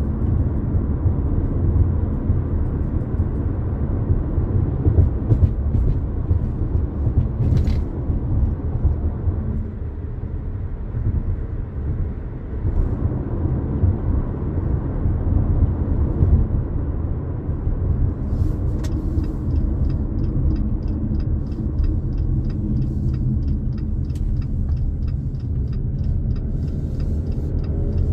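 Steady low road and engine rumble inside the cabin of a 2022 Jeep Compass Latitude while driving. Near the end, a fast, even ticking, like the turn-signal indicator, runs for several seconds.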